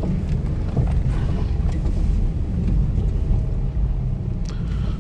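A car driving slowly on a dirt road, heard from inside the cabin: a steady low rumble of engine and tyres.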